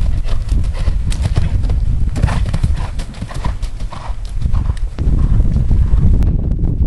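Hoofbeats of a ridden horse cantering across an arena surface of black chippings, an uneven run of sharp strikes over a steady low rumble.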